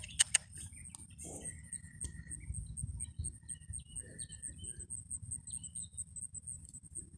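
Insect chirping steadily, a high pulsing trill that keeps an even rhythm, with a few short chirps and clicks over a low rumble.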